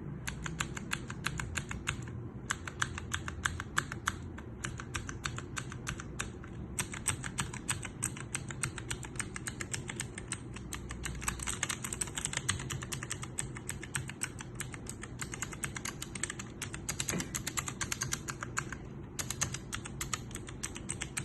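Fast typing on a mechanical keyboard with clicky switches: sharp, loud clacking keystrokes, several a second, broken by a few short pauses.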